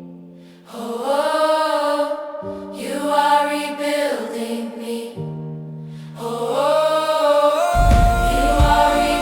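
Choir singing wordless vowels in three long phrases over held low notes; a heavy drum beat comes in near the end.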